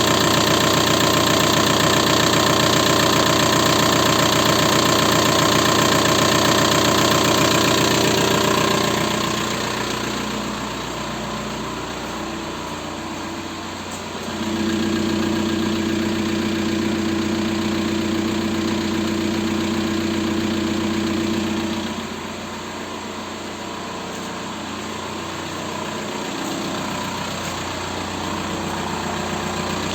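Volkswagen 1.9 TDI four-cylinder turbodiesel running with a knock, which the owner puts down to the hydraulic lifters and piston slap. The engine is louder for the first eight seconds or so, then quieter, with a louder steady stretch in the middle.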